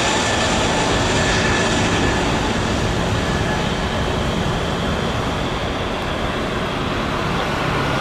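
Airbus A320neo's CFM LEAP-1A turbofan engines at takeoff thrust during the takeoff roll: a steady, loud jet roar with thin high whining tones over it, easing slightly as the aircraft rolls away.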